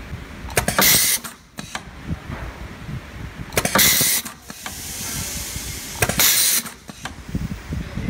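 Pneumatic wire strip-and-crimp machine cycling three times, about two and a half seconds apart. Each cycle is a sharp clack of the crimp stroke followed by a short hiss of air from its pneumatic cylinders.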